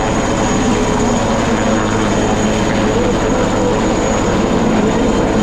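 Military helicopter hovering, its rotors beating steadily, with a thin constant high whine.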